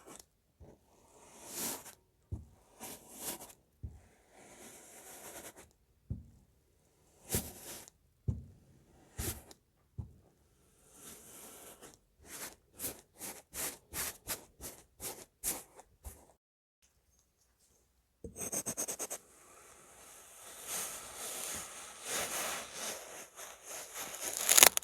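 Kinetic sand being handled: soft squishes and crunches, then a quick even run of about a dozen cutting strokes, about three a second. After a short pause comes a longer stretch of dense crumbly crackling, ending in a sharp crunch, the loudest sound here.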